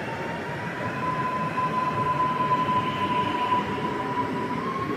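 Electric multiple unit pulling out of a station: a steady electric whine from the traction drive that rises slightly in pitch near the end as the train gathers speed, over the rumble of wheels on rail.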